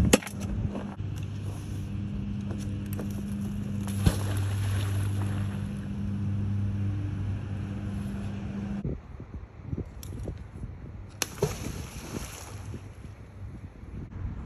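A steady low engine-like hum that cuts off abruptly about nine seconds in, then wind on the microphone with a few sharp knocks, the loudest about eleven seconds in.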